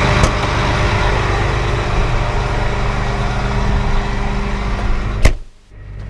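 Tractor engine running steadily. About five seconds in there is a sharp knock, and the engine noise drops off suddenly.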